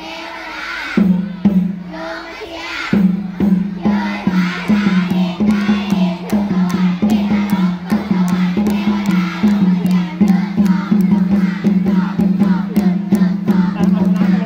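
Upbeat dance music with a steady beat and a deep bass note pulsing in time, with voices singing along.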